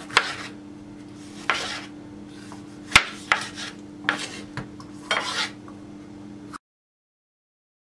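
Kitchen knife dicing a tomato on a wooden cutting board: a run of chops and sharp knocks of the blade on the board, the loudest about three seconds in. The sound cuts off to dead silence for the last second or so.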